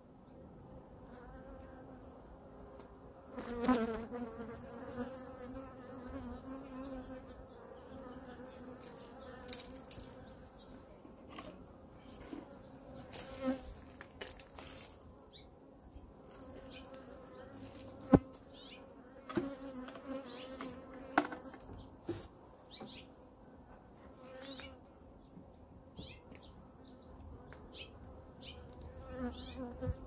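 Honey bees buzzing steadily around an open hive, with a bee passing close about three and a half seconds in. Scattered knocks and clunks from the wooden hive boxes and covers being handled, the sharpest about eighteen seconds in.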